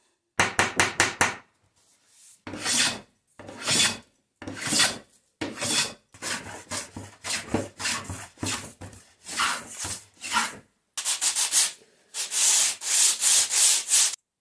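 A metal bench plane taking a series of separate strokes along a thin softwood strip, a rasping swish with each pass. Near the end the strip is rubbed quickly back and forth on sandpaper laid flat, a faster run of scratchy strokes.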